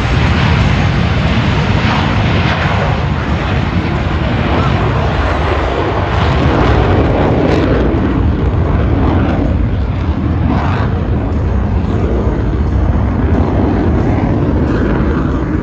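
Blue Angels F/A-18 Super Hornet twin turbofan jets flying past, a loud, steady jet roar that swells a little midway.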